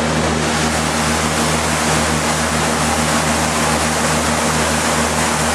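Motorboat engine running steadily at speed, heard from on board, a low even drone under a constant rush of wind and water.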